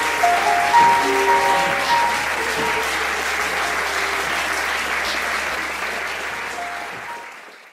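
Audience applauding, with a few held musical notes sounding over the clapping in the first half; the sound fades out near the end.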